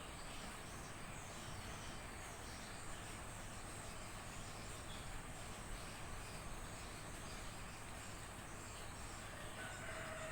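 Steady outdoor ambience with a faint, high insect drone such as crickets, and a faint short call near the end.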